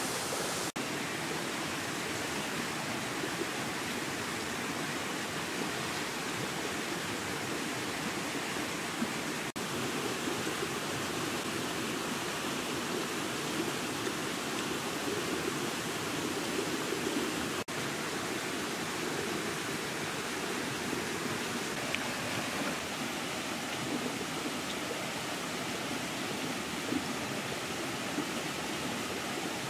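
Steady rush of running water from a nearby stream, an even hiss with no change in level; it breaks off for an instant three times.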